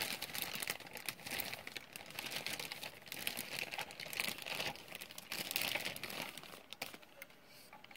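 Packing wrap crinkling and rustling in handling as a die-cast model car is unwrapped, with many small irregular clicks and crackles that die away about seven seconds in.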